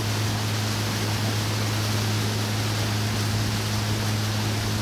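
Boat under way: a steady low engine hum under a constant rush of wind and water noise, unchanging in level.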